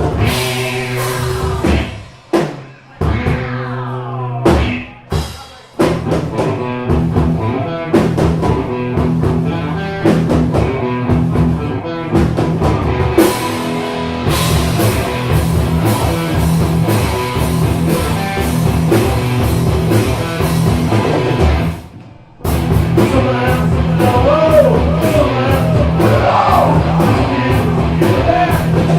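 Live rock band playing an instrumental passage on drum kit, guitar and bass. The band plays stop-start hits in the first few seconds, breaks off briefly about 22 seconds in, and comes back in.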